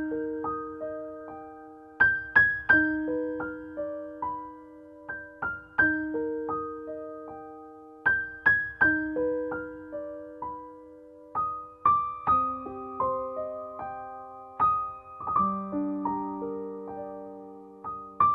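Background piano music: a slow, gentle melody of struck notes that fade away, with chords underneath.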